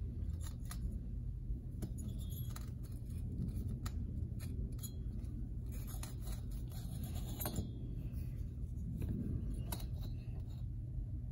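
Scattered small metallic clicks and light scrapes as a large steel socket is worked into a two-stroke engine's cylinder bore to push the piston ring down for an end-gap check, over a steady low hum.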